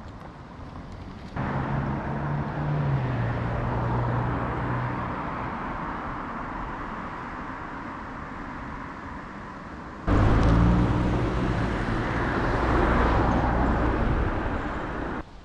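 Street traffic: motor vehicles passing close by, engine hum and tyre noise. It starts suddenly about a second in and fades somewhat, then comes back louder about ten seconds in and cuts off suddenly near the end.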